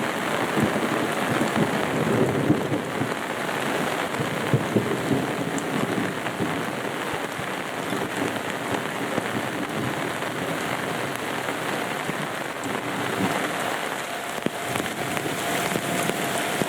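Heavy rain pouring steadily in a thunderstorm, with thunder rumbling over the first few seconds.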